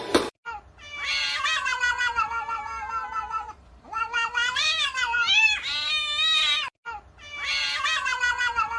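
Domestic cat yowling: three long, drawn-out calls, the middle one wavering up and down in pitch.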